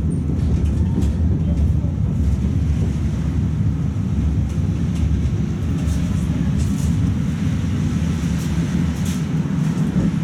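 Tatra T3 tram (MTTCh rebuild) running along the track, heard from aboard: a steady low rumble of wheels and running gear with a few faint clicks over it.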